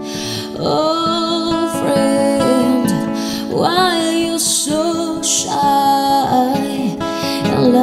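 Background music: a slow song with acoustic guitar and a sung melody that holds a wavering note about midway.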